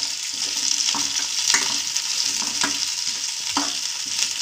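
Sliced onions, garlic, ginger and green chillies sizzling in mustard oil in a kadhai on medium flame, with a steel spoon scraping and knocking against the pan as they are stirred, several times.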